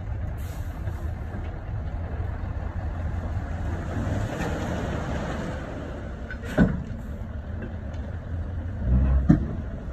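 Dump truck engine running while the raised bed tips a load of soil out through the open tailgate, the earth sliding and spilling onto the pile. A sharp knock comes about two-thirds of the way through, and a louder low thump with a click near the end.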